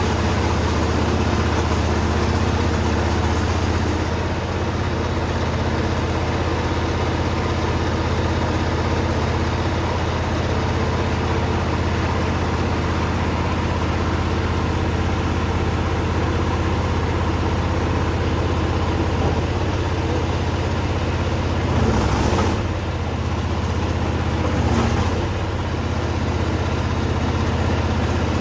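An engine running steadily, with a low, even hum, and two brief changes in its note about two-thirds of the way through.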